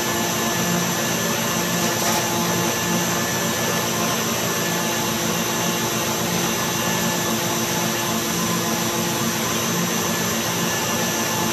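Electric stand mixer running at high speed, its wire whisk whipping Italian meringue in a stainless steel bowl as the syrup-cooked meringue cools: a steady motor whir.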